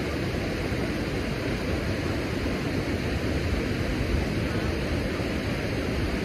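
Steady rush of churning water flowing out below a dam spillway.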